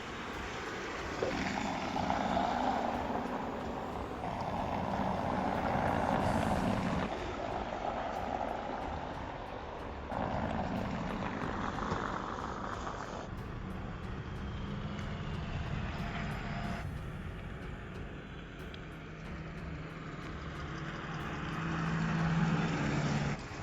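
Tyre and road noise of a Volkswagen ID. Buzz electric van driving, in several short clips cut one after another, the sound swelling and fading as it goes by. A low steady hum rises near the end.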